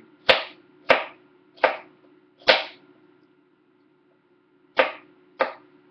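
Ceramic knife slicing through a red bell pepper and striking the cutting board. There are six sharp chops: four in the first three seconds, a pause of about two seconds, then two more close together.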